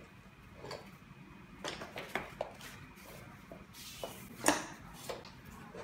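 Hot Mom baby bed rail being lifted and handled: light clicks and knocks from its metal frame and plastic hinge brackets, with one louder knock about four and a half seconds in.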